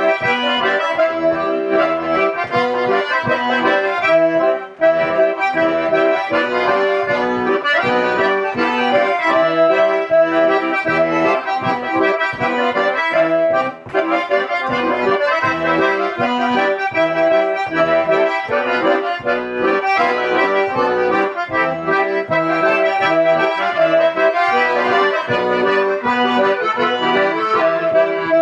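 Two accordions playing an instrumental passage together: melody over a regular, pulsing bass accompaniment. The music drops out very briefly twice.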